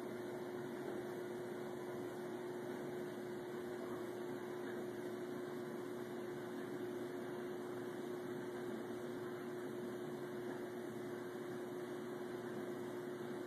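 Steady hum and hiss with one constant low tone, unchanging throughout.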